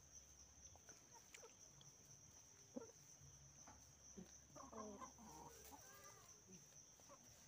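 Faint chicken clucking, a few short calls mostly in the middle, over a steady high-pitched drone.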